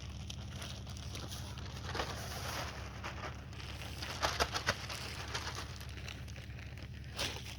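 Topsoil being worked with a garden rake: scattered short scrapes and crunches as the rake drags through chunky soil, in a small cluster near the middle and once more near the end.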